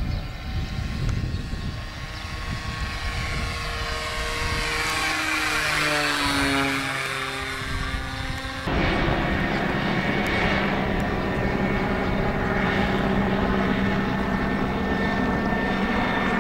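OS 46AX two-stroke glow engine of a radio-controlled Cessna 182 model running at flying speed, its pitch dropping as the plane passes by about halfway in. An abrupt change about two-thirds in leaves a steady, even drone.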